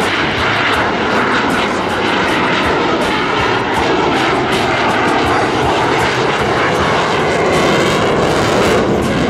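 Twin turbofan engines of a CF-18 Hornet fighter jet roaring loudly and steadily during a slow, nose-high, high angle-of-attack pass, with a swirling, phasing shimmer in the roar near the end as the jet passes.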